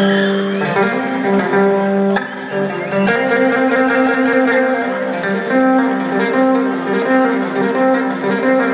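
Live rock band playing through a large hall's PA, with guitar and long held string notes, recorded from the audience.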